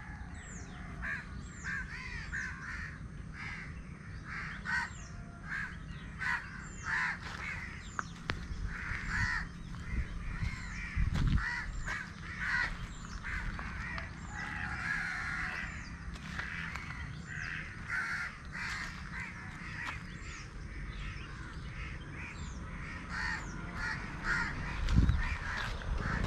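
Crows cawing again and again, with higher, thinner falling bird notes among them and a low rumble beneath. There are two low thuds, one about halfway and a louder one near the end.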